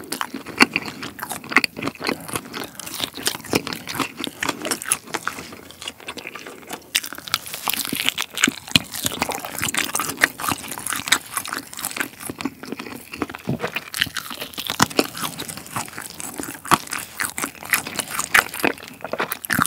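A person biting and chewing chili-pepper-coated chicken close to the microphone: continual mouth sounds with many small irregular crunches and clicks.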